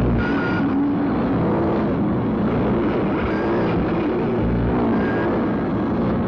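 Harsh noise music played from a cassette: a loud, dense wall of distorted noise over a heavy low rumble, with short high whistling tones flickering in and out.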